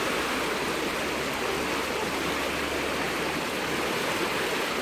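River in flood, swollen and muddy after a storm upstream, rushing past in a steady, even roar of water.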